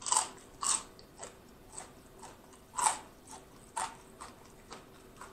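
Close-miked chewing of crunchy fried chicken wing flats, a crisp crunch about twice a second.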